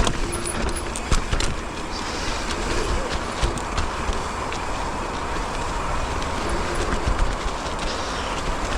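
Mountain bike rolling down a dirt trail: steady tyre and wind noise with a low rumble, and scattered clicks and rattles from the bike over bumps.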